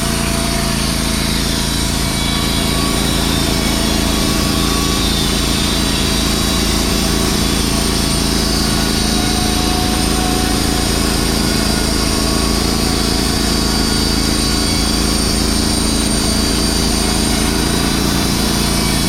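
Wood-Mizer LT15WIDE portable band sawmill running steadily under power, its band blade cutting a thin slice off a cedar log.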